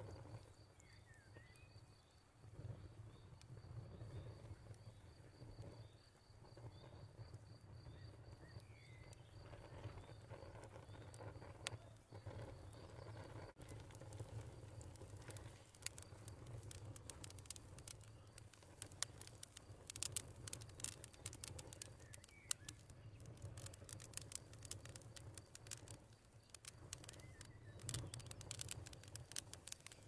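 Faint outdoor nature ambience with a soft low rumble. A thin, high pulsing trill runs through the first half and stops partway, and a few faint bird chirps come through. Scattered light ticks and patters fill the second half.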